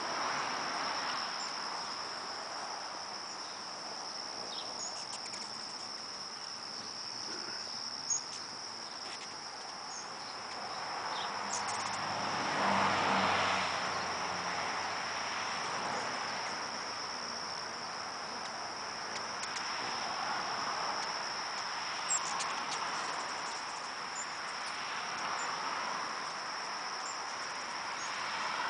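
Steady, unbroken high-pitched drone of summer insects such as crickets. A broader rushing noise swells and fades about halfway through, and there are a couple of faint clicks.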